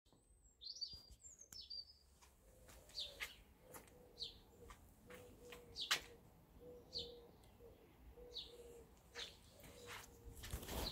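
Birds chirping: short, high, downward-sweeping calls about once a second, with a faint low hum that breaks on and off beneath them.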